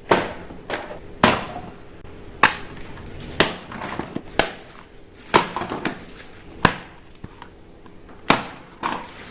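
A series of sharp plastic clicks and knocks, about a dozen at uneven intervals of roughly a second, from toy guns being handled and worked.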